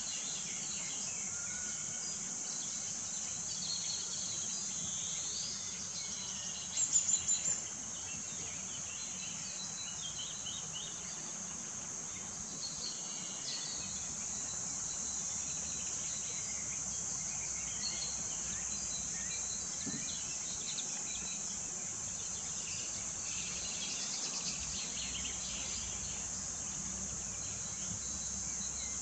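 Insects chirring steadily in a high, unbroken band, with scattered short bird chirps. About seven seconds in, a brief run of about five quick, louder chirps stands out.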